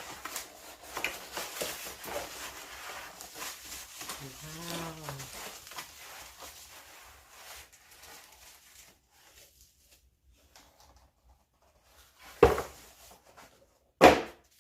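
Packaging rustling and crinkling as a boxed plastic turntable organizer is unpacked, with a brief pitched sound that rises and falls about four seconds in. The handling dies down, then two loud thumps come near the end.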